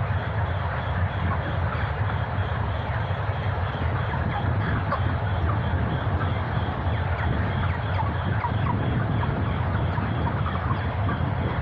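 A large flock of chickens peeping and clucking over the steady low hum of the poultry shed's ventilation fans.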